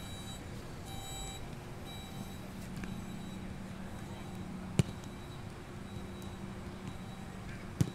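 Open-air training-ground ambience: a steady background hum with faint distant voices, broken by two sharp knocks about three seconds apart, one near the middle and one at the very end.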